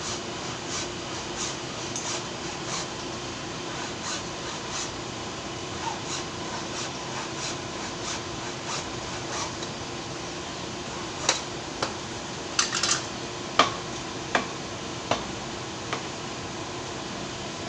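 Faint ticks over a steady hum, then a handful of sharper metallic clinks and knocks in the second half.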